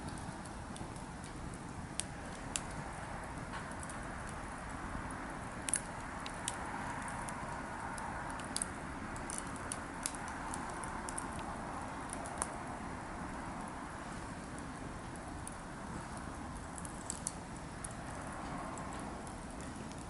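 Wood campfire burning with a steady hiss and scattered sharp crackles and pops, the loudest pop about six seconds in.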